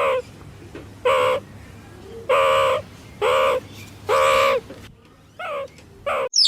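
An animal calling over and over: about eight short calls at a fairly even pace, each one dropping in pitch at its end.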